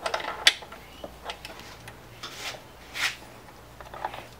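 A handful of short, irregular light clicks and taps of hand and metal parts at the mechanical fuel pump of a Toyota 4K engine, as a brass hose barb is fitted into it.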